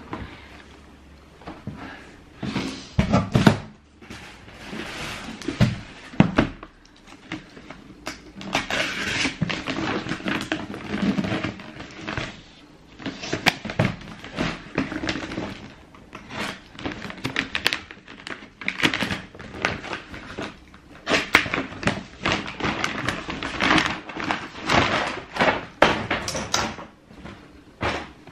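Cardboard Adidas shoebox being handled: rustling and scraping in irregular bursts, with a few sharper knocks as the box is moved and set down.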